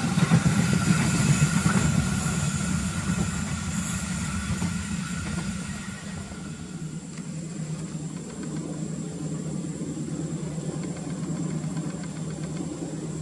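Diesel train, its louder running sound dying away over the first six seconds or so, leaving a steady low engine hum.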